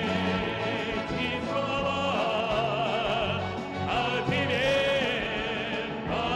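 Music: a singing voice holding long notes with wide vibrato over orchestral accompaniment, in classical style.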